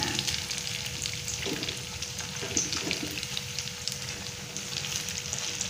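Battered banana fritters sizzling and crackling in hot oil in a wok, with a metal spatula stirring and turning them.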